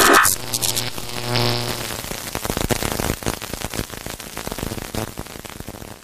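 Edited-in sound effect: a sudden loud burst, then a low buzzing tone for about two seconds under dense, irregular crackling clicks that slowly fade.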